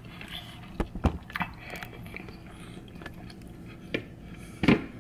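A fork clicking and scraping against a plate several times while a piece of chicken is cut and picked up, with a louder knock near the end.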